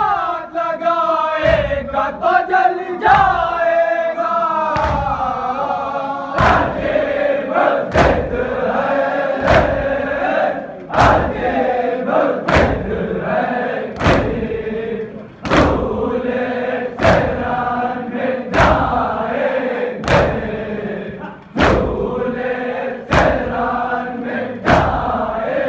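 Mourners chanting a noha together with rhythmic chest-beating (matam). The chest blows thud about every three-quarters of a second, every other one heavier, and grow strong a few seconds in.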